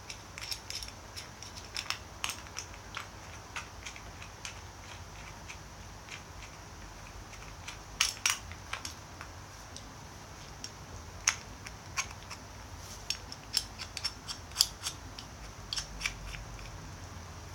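Irregular sharp clicks and taps of a small clip or case being handled and fitted at a belt, coming in clusters with pauses between them.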